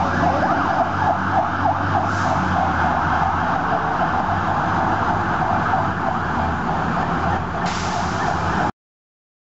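Fire engine's electronic siren in a fast, repeating yelp, over a low engine and traffic rumble. It cuts off suddenly near the end.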